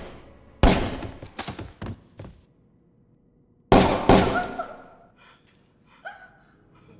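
Revolver gunshots ringing out with a long echo in a large empty warehouse. There is one shot about half a second in, followed by a few lighter knocks, then two shots in quick succession a little past the middle.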